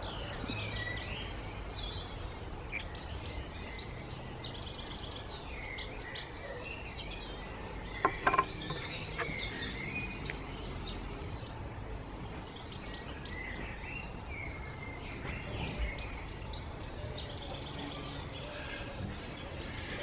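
Garden birds singing and chirping with many short high calls and trills, over a low steady outdoor background rumble. A brief louder sound stands out about eight seconds in.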